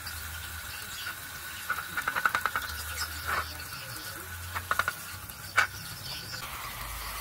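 Pressure-washer water jet hissing onto a cassette-deck front panel while a paintbrush scrubs it, the bristles scraping in quick runs of strokes about two seconds in and again near five seconds, with single knocks in between. A steady high whine runs underneath.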